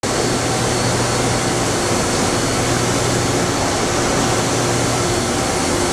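EDM DrillMate 430I CNC EDM hole drill running while burning a hole: a steady hiss with a constant low hum.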